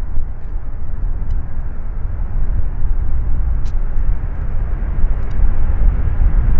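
Jet airliner engines rumbling low and steady, growing a little louder near the end.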